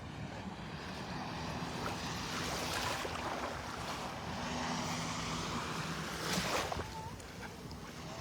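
Gulf surf washing on the beach, with wind on the microphone; the wash swells through the middle and eases toward the end.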